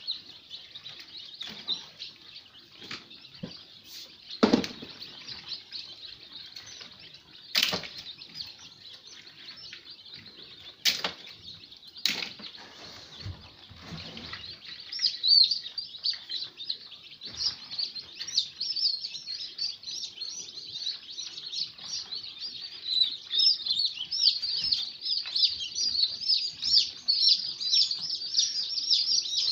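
Many newly hatched chicks in an incubator peeping rapidly and continuously, growing louder and busier about halfway through. A few sharp knocks sound in the first half as the incubator is handled.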